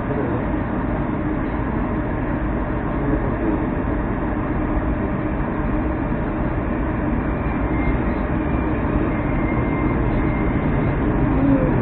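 Interior noise of a Moskva-2019 metro train as it pulls away from the station: a steady rumble that grows slightly louder, with a faint high whine in the second half.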